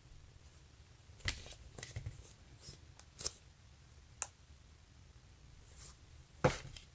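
Faint, scattered taps and rustles of hands handling foam squishy toys and setting one down on a holographic sheet, with a sharp click about four seconds in and a louder rustle near the end.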